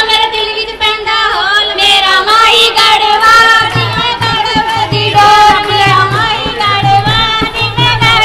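Punjabi folk singing (boliyan) by women for the Teeyan giddha, sung loud and steady. A low drum beat comes in about three and a half seconds in.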